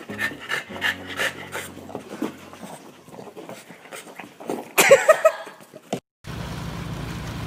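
A dog panting quickly and excitedly, with a short loud cry that falls in pitch about five seconds in. After a brief break, a snowblower engine starts running steadily near the end.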